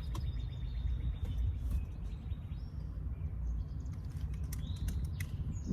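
Outdoor background of birds chirping faintly over a steady low rumble, with a few light clicks.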